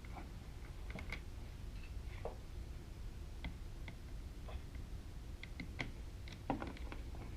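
Scattered light clicks and small metallic taps at irregular intervals, a louder knock about six and a half seconds in: hand work fitting a quick-disconnect ring terminal to a motorcycle battery's terminal, over a low steady hum.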